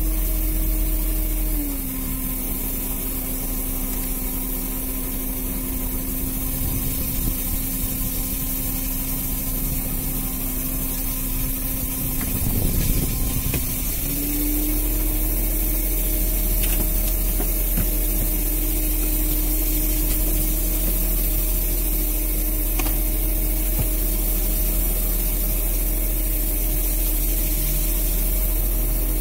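Fishing boat's engine running steadily; its pitch drops about two seconds in and comes back up about fourteen seconds in, just after a short burst of noise.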